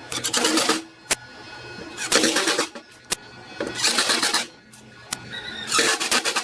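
A tool working wood in four rasping strokes about two seconds apart, with a sharp click between strokes.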